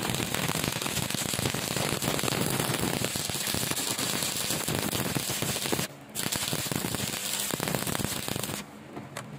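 Stick (arc) welding: the electrode's arc crackling and sputtering steadily as the bead is laid. The arc breaks off briefly about six seconds in, restrikes, and goes out a second before the end.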